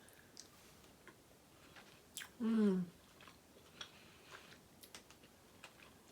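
A person chewing a pineapple gummy, faint wet mouth clicks. A short hummed "mmm" falls in pitch about two and a half seconds in.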